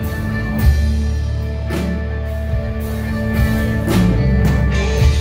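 Live band playing a country-rock song: electric guitars over bass and a drum kit.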